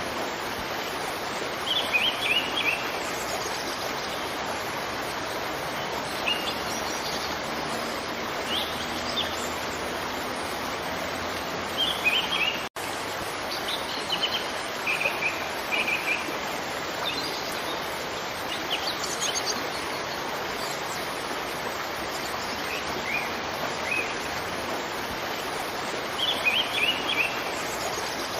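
Steady rushing of a waterfall, with small songbirds chirping over it in short, quick bursts every few seconds. About halfway through, the sound drops out for a split second.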